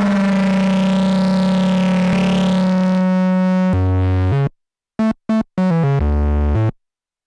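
Korg Monologue monophonic analogue synthesizer holding one bass note while a knob is turned, its upper tone rising and falling, then a few short bass notes with dead silence between them.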